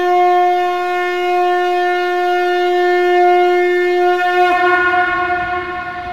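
Conch shell (shankha) blown in one long, steady, horn-like note that wavers and breaks up about four and a half seconds in, trailing off over a low rumble.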